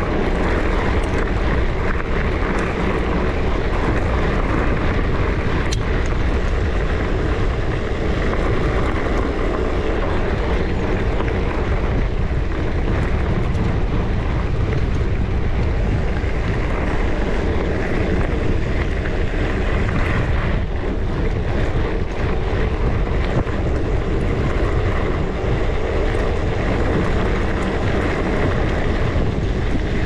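Steady rushing wind noise on the microphone of a camera riding along on a mountain bike.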